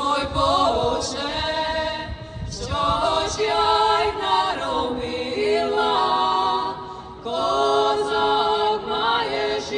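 Choir singing a cappella in several voices, with long held notes that step from one pitch to the next and a short breath-like dip a little past the middle.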